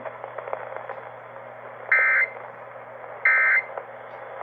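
Emergency Alert System end-of-message data bursts over the radio: two short buzzy digital tone bursts, each about a third of a second long and about 1.3 s apart. They mark the end of the tornado warning message. Under them is steady radio hiss with a few crackles in the first second.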